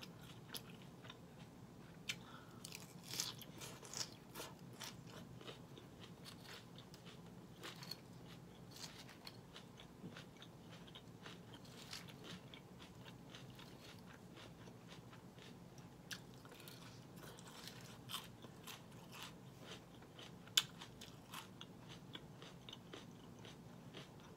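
Close-miked chewing and crunching of crisp romaine lettuce salad, with many small irregular crunches. A few sharp clicks from a metal fork against the glass bowl, the loudest near the end.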